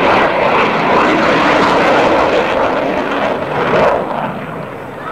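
Military jet flying past, its engine noise loud and rushing, dropping off sharply about four seconds in as it pulls away.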